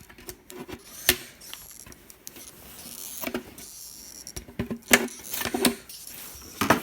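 Hand snips cutting into the drilled seed holes of a plastic coffee can: irregular sharp clicks and short crunching scrapes as the blades close and the can is handled.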